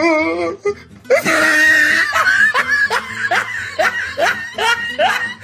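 Loud laughter starting about a second in, a string of short rising 'ha' bursts about three a second, over background music.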